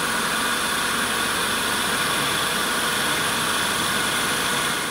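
Wood lathe running steadily while a lathe knife, a traditional Russian chisel, cuts the spinning wooden spindle blank.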